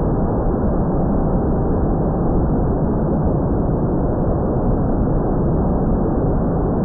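Steady loud rushing of wind buffeting the microphone, a dense low rumble with no distinct motor tone.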